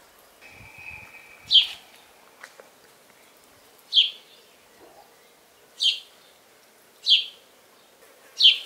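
A bird giving short, sharp chirps, each a quick downward sweep in pitch, five times at uneven gaps of one to two and a half seconds.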